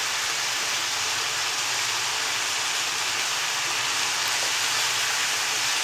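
Marinated chicken pieces sizzling steadily in a little hot oil in a frying pan, the second side now frying after being turned over.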